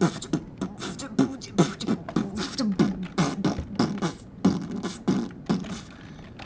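A boy making rhythmic vocal mouth sounds: short falling voiced syllables with sharp clicks, about two to three a second, stopping shortly before the end.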